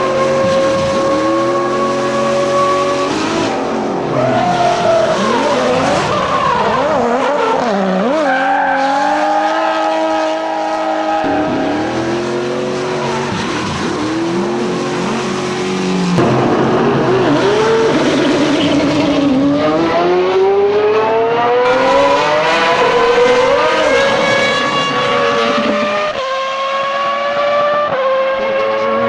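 Dubbed-in car sound effects: engines revving in rising sweeps, with stretches of tyres squealing and skidding.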